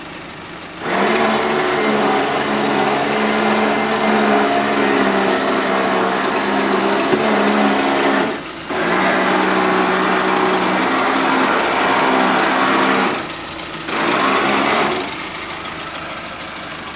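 12 V electric recovery winch motor running under load as it hauls the stuck Nissan Navara out of the mud, in three runs that start and stop abruptly: a long pull of about seven seconds, a second of about four seconds, and a short one-second burst. The vehicle's engine idles underneath.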